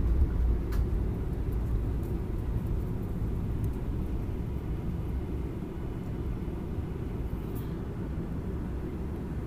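Low, steady rumble inside the cabin of a Boeing 737-800 moving along the ground, from its CFM56 engines and rolling gear, easing off slightly in loudness; a couple of faint ticks.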